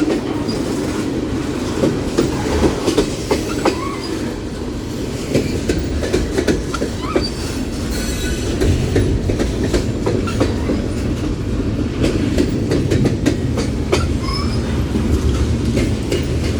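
Freight train cars rolling past close by: a steady, loud rumble of steel wheels on rail, with irregular clicks over the rail joints and a few faint, brief wheel squeals.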